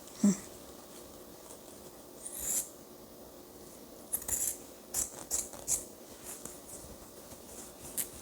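Scissors cutting through fabric: several short, sharp snips, most of them in a quick run in the middle, with light rustling between.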